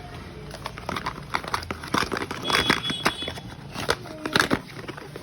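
Irregular clicks, taps and crinkles of a camera's box and packaging being handled and opened, busiest in the middle of the stretch.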